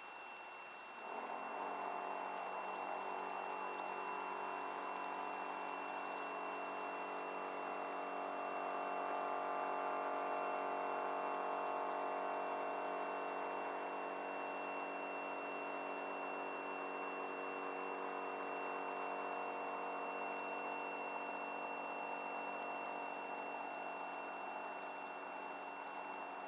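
An engine running steadily at an even pitch. It starts suddenly about a second in, swells a little midway, then eases off slightly.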